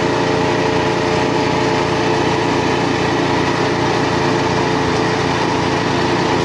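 Small petrol engine driving a wood chipper, running steadily at working speed.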